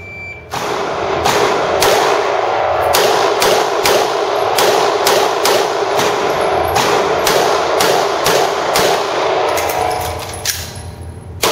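A Glock 17 9mm pistol fired in a fast string of about twenty shots, often in quick pairs, during a timed practical-shooting stage. A short high shot-timer beep sounds right at the start as the start signal.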